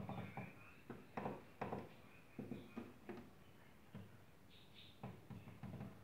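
Push-buttons on a Daewoo DWD-FT1013 washing machine's control panel pressed over and over while the button sequence for its service test mode is keyed in: a string of about a dozen irregular short clicks and knocks.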